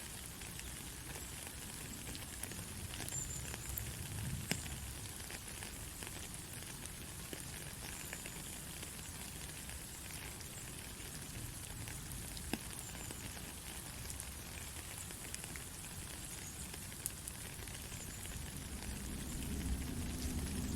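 Steady rain falling: an even hiss with scattered sharper drop ticks. A lower rumble swells in near the end.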